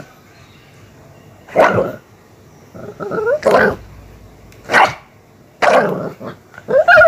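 Miniature pinscher barking fiercely in short bursts, about five times, at a hand teasing it.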